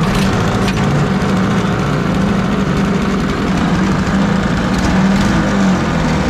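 212cc 6.5 hp Honda-clone single-cylinder four-stroke engine running steadily, out of the water with no load on the jet unit, vibrating hard on its mount in the boat.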